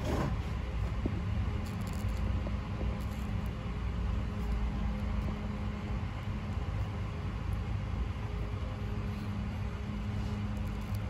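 A steady low background rumble with a faint hum, and a few faint crisp clicks from baby sulcata tortoises biting into leafy greens.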